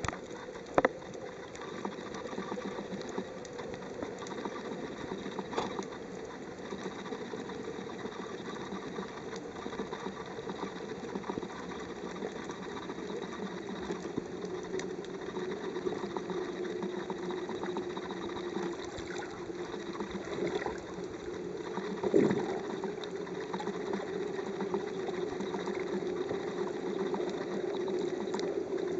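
Underwater ambience picked up by a camera in a waterproof housing: a steady low drone of water noise with scattered clicks, and two sharper knocks, one just after the start and one about three quarters through.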